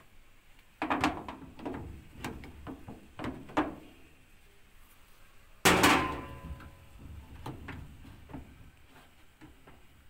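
Metal parts of a commercial clothes dryer being handled: a run of knocks and clunks, then one loud metallic clang a little before the six-second mark that rings briefly, followed by lighter taps.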